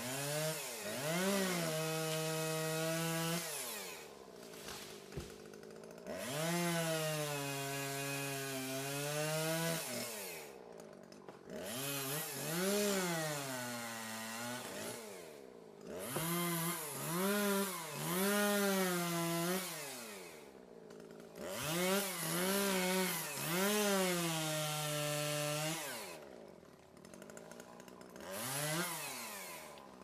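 Chainsaw engine revved up to full throttle about six times, each run holding a few seconds with the pitch sagging and recovering as the chain bites into small trees, then dropping back toward idle between cuts.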